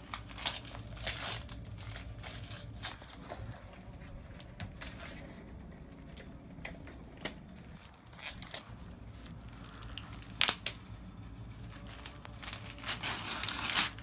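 Wrapping paper being torn and crumpled off a gift in short, irregular rips, with two sharp rips about ten seconds in and a longer stretch of tearing near the end.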